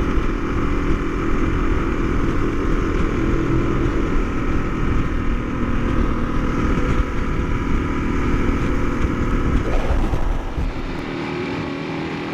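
Kawasaki KLR650's single-cylinder engine running at a steady road speed, mixed with heavy wind rumble on the mic. About ten seconds in the rumble drops away and the sound becomes quieter and smoother.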